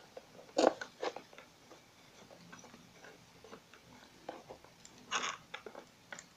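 Small plastic parts clicking and knocking as a white plastic coupling is handled on a metal drive shaft of an RC amphibious car: a scatter of sharp clicks, the loudest about half a second in, and a brief scraping rustle around five seconds in.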